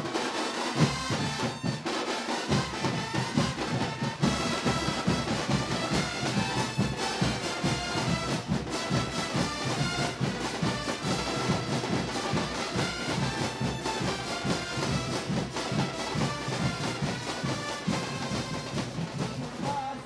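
Brass band music: horns playing a melody over a steady beat of drums.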